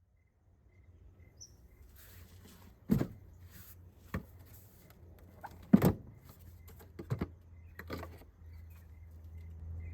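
A handful of sharp knocks and clicks, one loudest about six seconds in, over a low steady hum, with faint chirping of insects repeating a few times a second.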